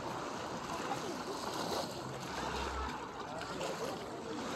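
Beach ambience: gentle waves washing over the shallows at the shoreline, with the indistinct voices of swimmers and bathers in the water around.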